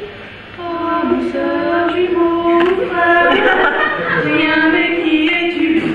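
Two women singing together, starting about half a second in, with long held notes.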